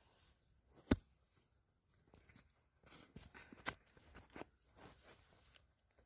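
Faint rustling and scattered clicks of movement through leafy branches, with one sharp click about a second in and another near the middle.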